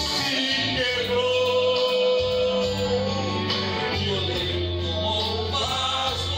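A man sings a worship song into a microphone, amplified over a backing track with guitar. About a second in he holds one long note for about two seconds.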